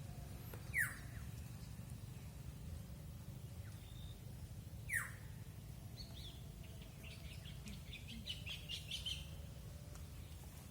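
Bird calls: two sharp, falling calls about four seconds apart, then a quick series of short high chirps a little past halfway, over a steady low hum.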